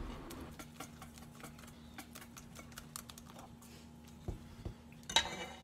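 Wire whisk clicking and scraping against a stainless steel bowl while stirring batter in quick strokes, with a few louder knocks near the end.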